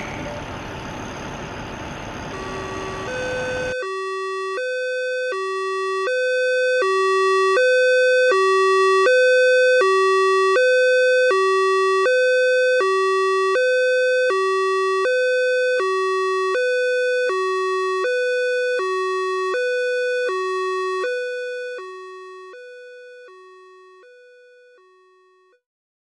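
A rushing noise for about four seconds, then a two-tone hi-lo ambulance siren alternating evenly between a high and a low note. It grows louder, then fades away over the last few seconds.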